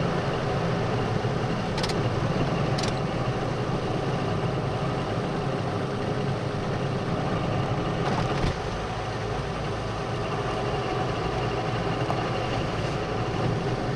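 Steady engine and road rumble heard from inside a moving car's cabin on a wet road. Two brief clicks come about two and three seconds in, and the level drops slightly about eight and a half seconds in.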